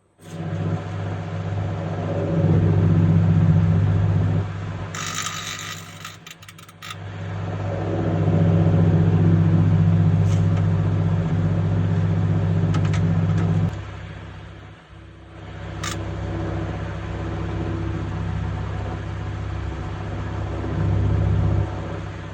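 Microwave oven running with its steady low hum, which swells and dips, and a burst of crackling from tinfoil arcing inside it about five to seven seconds in, with a few sharp snaps later.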